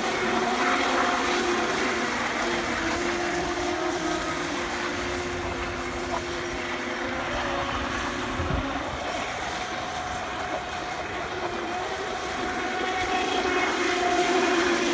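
Several Pro Boat Recoil radio-controlled boats racing on open water: the whine of their brushless electric motors over the hiss of hull spray, the motor tones drifting slowly in pitch as the boats run. It grows louder near the end as a boat passes close.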